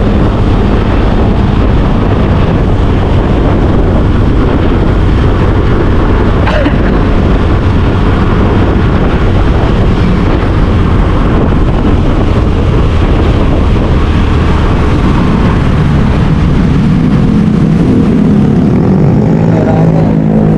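Steady engine and road noise of a vehicle on the move, with wind on the microphone.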